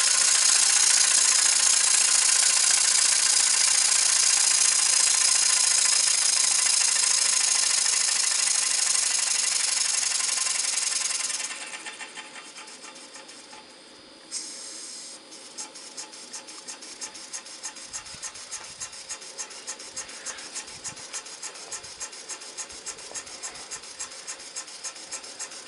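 Model Muncaster steam table engine running at high speed on steam, a steady rasping rush of exhaust and motion. About halfway through the steam valve is turned down and the sound drops sharply quieter; after a brief burst it settles into slower, even exhaust beats, several a second, as the engine runs throttled back.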